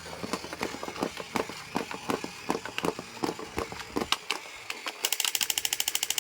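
Irregular clicks and taps, then from about five seconds in a fast, even rattle of around ten clicks a second.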